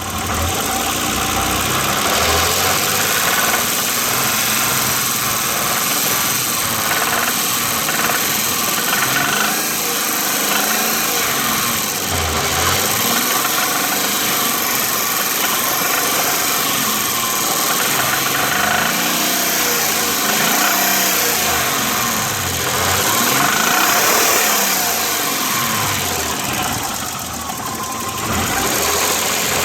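BMW M20 2.7-litre straight-six engine running and being revved up and down repeatedly, with a light intermittent rattle or knock. The rattle comes at part throttle between 2500 and 3500 rpm; the owner places it over the number 3 cylinder and doubts that it is a rod knock.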